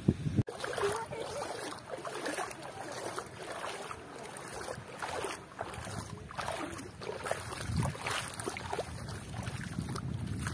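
Shoreline ambience on a wet low-tide reef flat: light wind with scattered, irregular soft splashes and crackles of shallow water.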